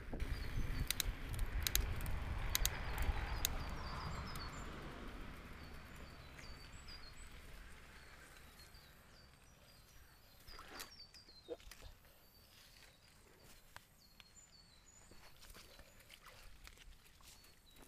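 Mountain bike rolling on a dirt track with wind on the microphone and rattling clicks, fading away over the first few seconds as the bike slows to a stop. Then small birds calling in the bush, short high chirps repeated many times, with a couple of clicks about two-thirds of the way through.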